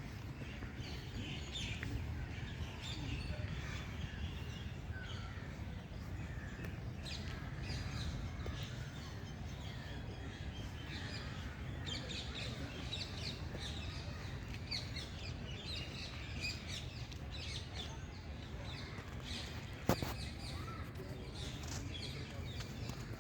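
Many birds chirping and calling at once, a dense mix of short high notes, over a steady low rumble. A single sharp click about twenty seconds in.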